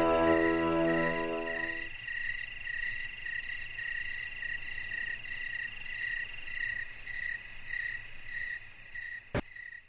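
Night-time chorus of calling frogs and insects: a call pulsing about two or three times a second over a steady high trill, after music dies away about two seconds in. A single sharp click near the end, then the sound cuts off.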